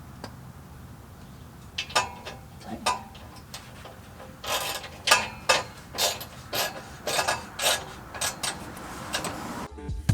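Irregular clicks and light knocks of hard objects being handled, few at first and then many in quick succession for about five seconds, over a faint steady low background hum.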